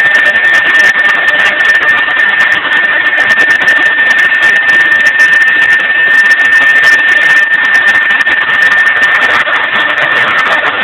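Mahecor KM 30 CNC router running, with one steady high whine over a loud, even noise.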